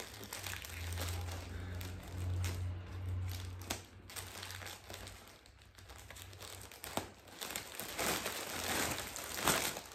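Plastic mailer bag crinkling as it is handled and cut open with scissors, with scattered sharp snips and rustles.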